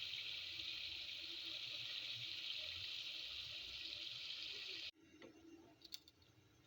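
A steady rush of running water that cuts off suddenly about five seconds in, followed by a few faint clicks.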